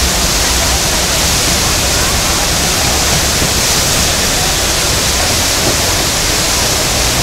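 Loud, steady rush of whitewater from the Eisbach's standing river wave, the river pouring over its step and breaking in a churning wave.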